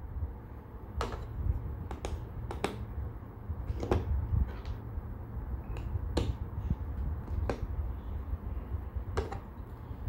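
Plastic LEGO bricks clicking and tapping as they are picked up off a table and pressed together by hand: a scattering of sharp, irregularly spaced clicks over a low steady rumble.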